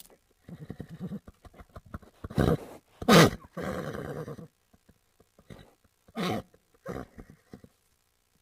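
Horse making a run of short, loud snorts and low, rumbling vocal sounds, the loudest about three seconds in.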